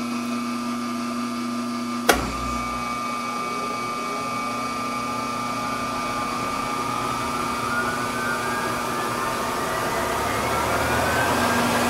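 A 30 hp rotary phase converter idler runs with a steady electrical hum. About two seconds in, a contactor clicks and a 10 hp vacuum motor starts on it. The motor's whine rises slowly in pitch over several seconds as it labours up to speed, a hard start that draws heavy current.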